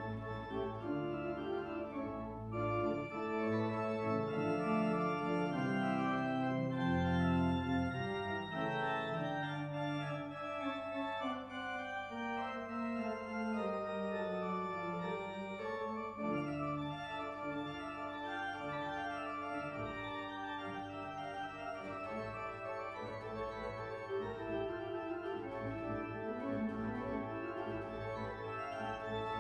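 Church organ playing slow, held chords over a moving bass line.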